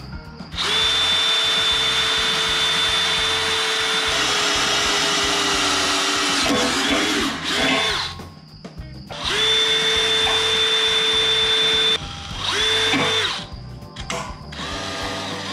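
Cordless drill boring into the thin steel of an excavator's dozer blade: the motor whines at a steady speed, sags and wavers as the bit bites, stops twice for about a second, and starts again.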